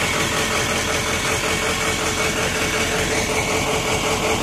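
Full-size van's engine idling steadily.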